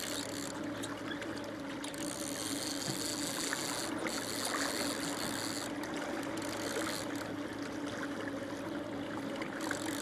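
Boat engine running steadily at trolling speed as a constant low hum, with water washing along the hull.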